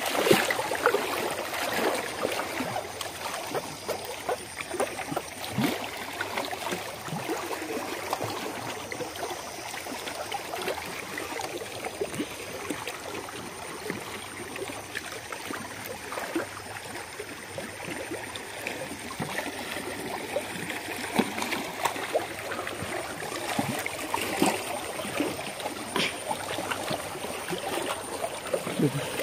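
Small waves lapping against the rocks at a reservoir's edge: a steady watery wash with scattered small knocks.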